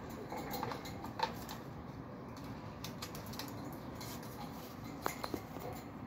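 Small scattered clicks and taps of a green-cheeked conure's beak and claws on the metal wire bars of its cage as it climbs, the sharpest about a second in and another pair near the end.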